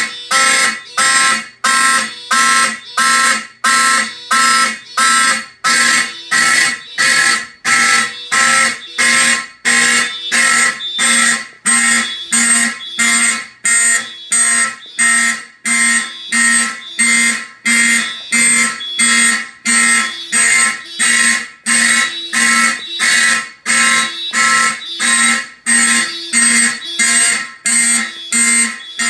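Simplex fire alarm horns sounding, very loud, in rapid, evenly spaced pulses that do not let up.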